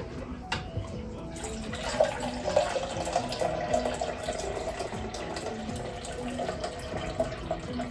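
Kitchen tap running water into a sink, starting about two seconds in and running on steadily, with soft background music underneath.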